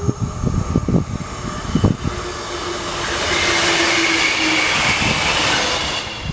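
A regional multiple unit passes at speed: a rushing of wheels and air that builds from about two seconds in, peaks around four seconds, and cuts off suddenly near the end. Low gusts of wind buffet the microphone in the first two seconds.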